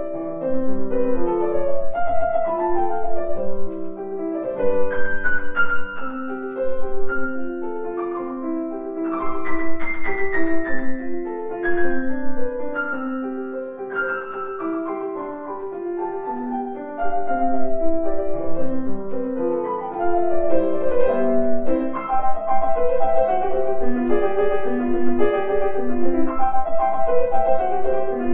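Grand piano played solo: a busy passage of many quick notes, softer through the middle and louder again for the last ten seconds or so.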